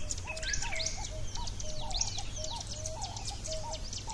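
Birds calling together: a repeated lower call about twice a second, under many quick high chirps and whistles.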